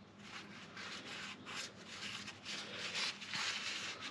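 Shop rag wiping excess oil off the round oil strainer cover on the bottom of a 1971 Volkswagen Beetle's engine: a run of irregular rubbing swishes of cloth on oily metal.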